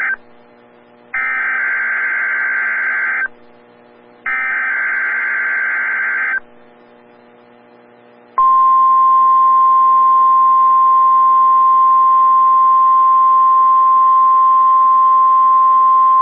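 NOAA Weather Radio Emergency Alert System test. The last instant of one SAME digital header burst, then two more full bursts: buzzy two-tone data bursts of about two seconds each, a second apart. About eight seconds in, after a two-second pause, the loud, steady 1050 Hz warning alarm tone begins.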